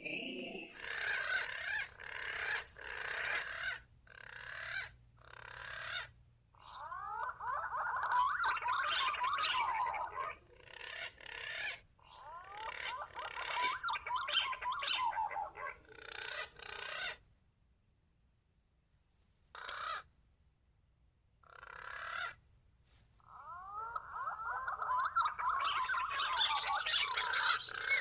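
Punai (green pigeons) calling, many overlapping falling whistled notes in several bouts, over a steady high-pitched drone. The sound breaks off into near silence twice for a second or two about two-thirds of the way through.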